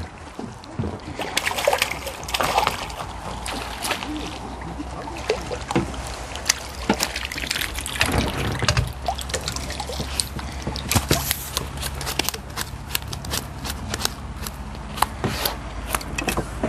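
Water splashing and dripping as a hooked crucian carp is brought in and landed, with many small clicks and knocks of tackle handling.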